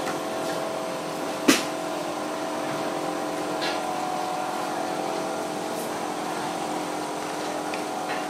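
Steady mechanical hum holding several steady tones, with one sharp click about one and a half seconds in.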